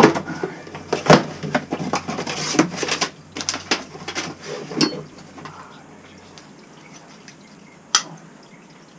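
Hand tools clanking and clicking against the metal fittings of a hydronic circulator pump, a run of sharp knocks over the first five seconds, then one sharp clack about eight seconds in.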